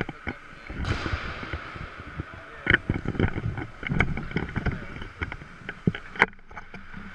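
Ice hockey rink sounds: sharp clacks of sticks and pucks, loudest about three times, over a steady rink background with some voices.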